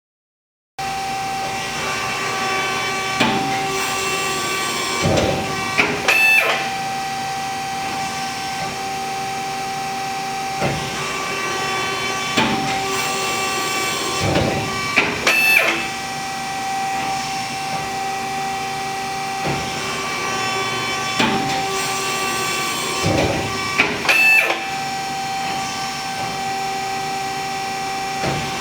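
RAS 74.30 CNC sheet-metal folding machine running: a steady hum, with a group of mechanical clunks and clicks about every nine seconds, three times over.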